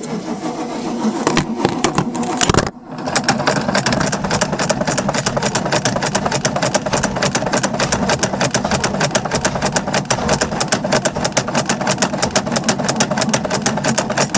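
Starter motor cranking a Mercury MerCruiser 5.7 V8 boat engine on a jump start: a short crank, a brief stop about three seconds in, then a long crank with rapid, even beats. The engine turns over but does not start.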